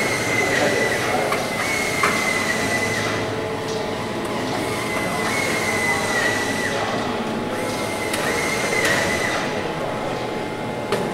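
Hand-held pneumatic drill running in short bursts of a second or two on aluminium wing skin, a high whine whose pitch dips now and then.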